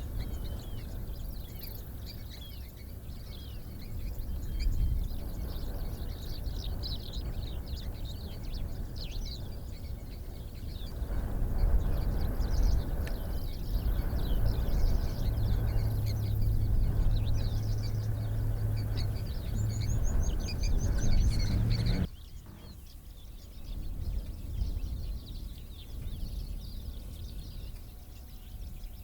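Many small birds chirping and calling, with a quick falling trill about two-thirds of the way through, over a low outdoor rumble that carries a steady low hum for several seconds and then drops away suddenly, leaving the birds quieter.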